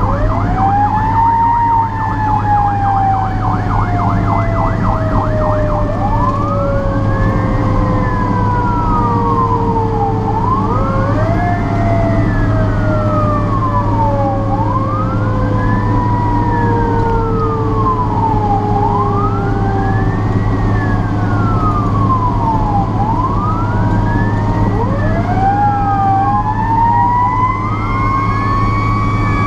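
Fire truck sirens on an emergency run: a fast yelp that switches about two seconds in to a wail rising and falling roughly every four seconds, with a slower tone winding down beneath it and a second wail overlapping near the end. Under it all runs the steady drone of the fire truck's engine.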